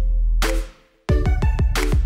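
Electronic background music with a heavy sustained bass and stacked synth notes; it cuts out briefly about a second in, then comes back.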